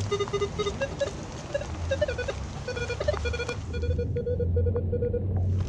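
Nokta metal detector sounding a string of short audio beeps as its coil sweeps over buried metal. The beeps jump between higher and lower pitches, then settle into a rapid run of even beeps at one pitch in the second half.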